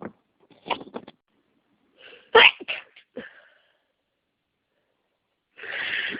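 A person sneezing from an allergy flare: a short burst about a second in, then a loud sneeze about two and a half seconds in. Near the end a long breathy rush of air begins.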